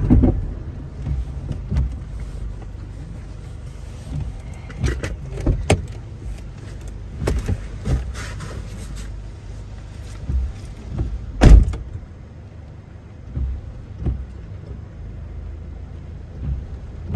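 Toyota Innova Crysta 2.4 diesel driving slowly over a rough, broken track: a steady low rumble with scattered knocks and thumps as it jolts over the bumps, the loudest about eleven and a half seconds in.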